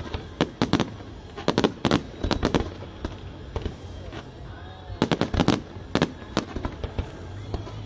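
Aerial fireworks in a display finale: shells bursting in rapid clusters of sharp bangs, several a second, with a brief lull in the middle.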